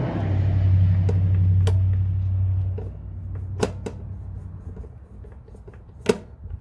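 A few sharp clicks and snaps of hands fitting an RV water heater's replacement control board and its connectors, the loudest near the end. Under them a low steady rumble runs for the first three seconds or so, then fades.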